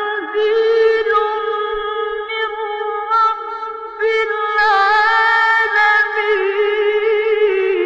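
Melodic Quran recitation: a single high voice drawing out long, wavering held notes with short breaks between phrases.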